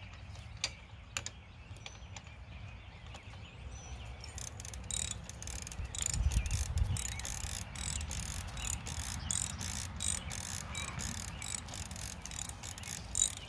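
Socket ratchet clicking as it runs a long-threaded bolt down on a Craftsman tiller's pulley. The clicks are sparse at first, then come in a steady run of about two to three a second from about four seconds in.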